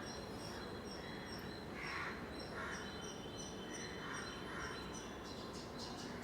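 Small birds chirping steadily in the background, a high short note repeating evenly about twice a second.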